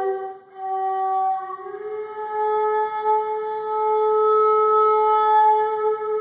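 Background music: a flute playing a slow melody of long held notes. It dips briefly near the start, steps up to a higher note about two seconds in, and holds that note to the end.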